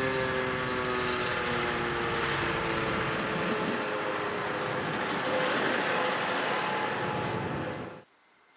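Civil-defence warning siren winding down, its pitch falling slowly under a steady rushing noise; the sound cuts off abruptly near the end.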